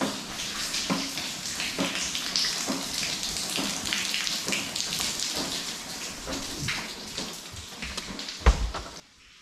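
Water running and spattering in many small drops. A dull thump comes near the end, then the sound cuts off suddenly.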